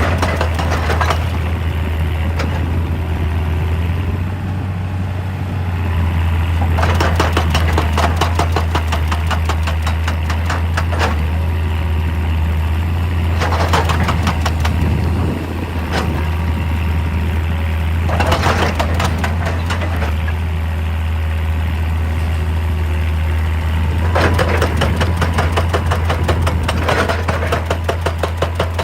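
Diesel excavator engine running steadily, with several bursts of a few seconds each of rapid hammering from a hydraulic rock breaker striking rock.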